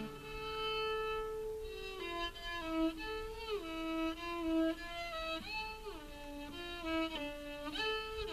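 Cello played live with the bow, a slow single-line melody high on the instrument. A long held note opens it, then the notes change every half second or so with audible slides between them.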